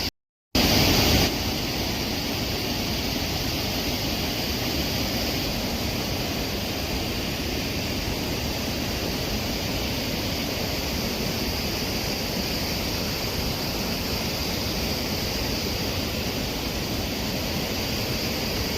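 Steady wash of heavy rain and running water, an even hiss with no breaks apart from a split-second gap near the start.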